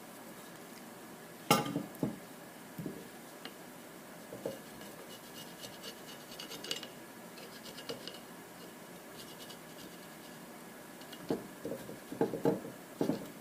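A sharp scraper scraping old gasket material off the Quadrajet carburetor's gasket surface in short scratchy strokes. A sharp knock about 1.5 s in and a run of small knocks near the end, as metal tools and parts are handled.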